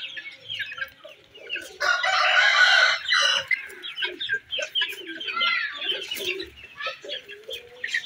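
Young chickens peeping and clucking in a steady run of short, quick calls. About two seconds in, a louder, harsh chicken call lasts about a second.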